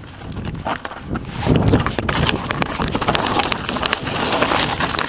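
YT Industries Capra AL Comp mountain bike rolling over rocky, loose-stone trail: tyres crunching on the stones and the bike rattling, with many sharp clicks and knocks. It gets louder about a second and a half in.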